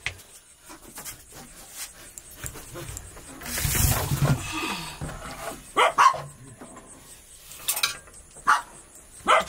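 Dog barking in short barks, about four of them in the second half, two in quick succession. About four seconds in there is a louder noisy burst lasting about a second.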